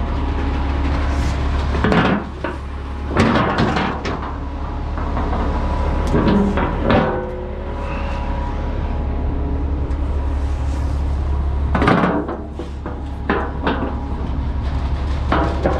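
Metal clanks and scrapes of concrete mixer truck chute sections being lifted and hooked into place: several separate knocks, a few close together, over a steady low rumble from the truck.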